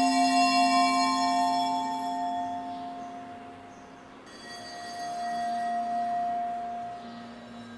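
Ringing tones from glass percussion instruments: several notes sounding together and slowly dying away. A new, quieter group of notes sounds about four and a half seconds in, and another near the end.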